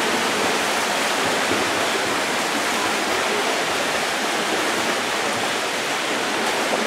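Steady splashing of several swimmers racing in a pool, their strokes and kicks blending into a continuous wash of water noise.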